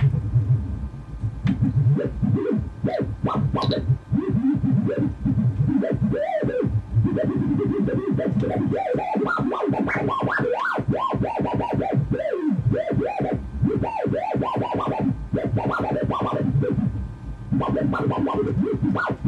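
Homemade sound generator: two LTC6990 voltage-controlled oscillators steered by a two-axis gyroscope and mixed through an XOR gate, played through a stereo amplifier. It makes buzzy synthesizer-like tones that swoop up and down in pitch as the gyroscope is moved, over a steady low drone.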